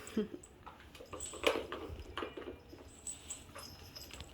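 Faint scattered taps, clicks and rustles from a six-week-old Bengal kitten moving and playing in a person's lap, with one sharper tap about a second and a half in.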